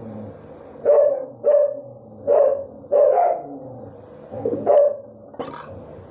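A dog barking repeatedly, about six sharp barks roughly a second apart: a female dog warning off another male dog prowling around.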